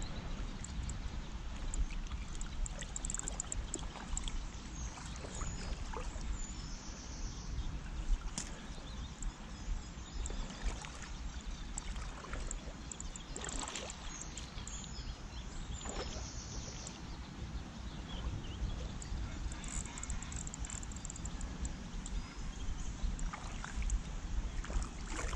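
Wind buffeting a body-worn camera's microphone at the water's edge, a steady low rumble over a wash of lapping, rippling water, with scattered small clicks.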